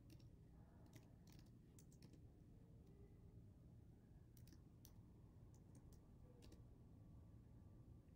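Faint computer keyboard typing: scattered key clicks in small irregular groups with pauses, over a low steady hum.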